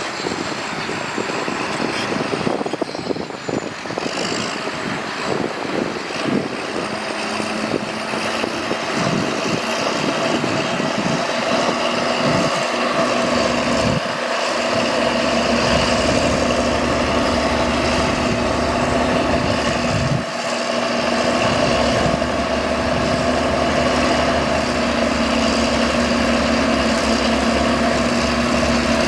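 Diesel engine of heavy earthmoving machinery running steadily, a little louder from about halfway through.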